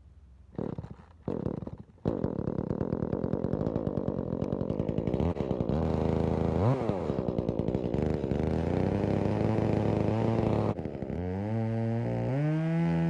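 Muffler-modded Echo CS-271T two-stroke top-handle chainsaw pull-started: two pulls on the starter cord, catching on the second, then running at idle with two quick throttle blips. Near the end it revs up to a high steady speed.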